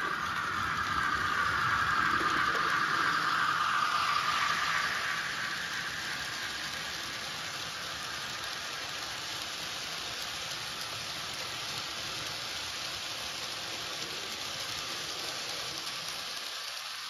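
Model Fleischmann 150 X steam locomotive with a DCC sound decoder running past, its onboard speaker's steam sound loudest in the first few seconds. Then the steady rolling rattle of a long string of coal hopper wagons on the track.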